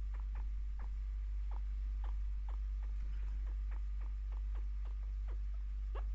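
Pet chinchilla chirping: short, quick chirps that each fall in pitch, about three a second in an uneven run. This is the happy, contented chirp she gives when sat with and given scratches and attention. A steady low hum runs underneath.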